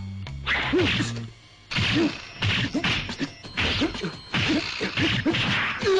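Cartoon punch sound effects from a boxing sparring scene: a run of whacks, about two a second, with a few low music notes under the first second and a half.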